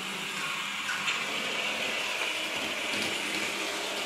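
Sound-equipped N scale Amtrak P42 model locomotive running around the track, its Digitrax sound decoder playing a steady diesel engine sound through a tiny speaker. A brief click about a second in.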